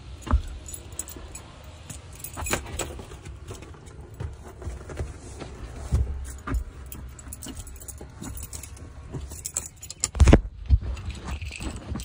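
Clicks, rattles and small metallic jingles with several dull thumps as things are handled and moved inside a Mahindra Scorpio's cabin. The heaviest thumps come near the end.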